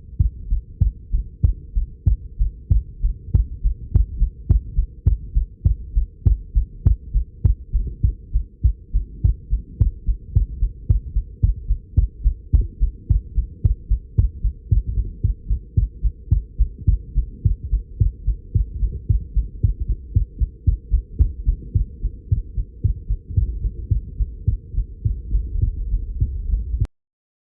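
A person's own heartbeat, recorded close up, beating fast at about two beats a second as muffled low thumps. The heart is pounding hard from nervousness. The beating cuts off abruptly near the end.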